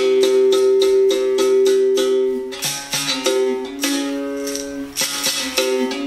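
Berimbau, a gourd-resonated musical bow with a steel wire taken from a car tyre, struck in a quick run of strokes with the stick while the caxixi rattle shakes along. The note changes a little past halfway as the dobrão is pressed against and lifted off the wire, played to check whether the berimbau is in tune.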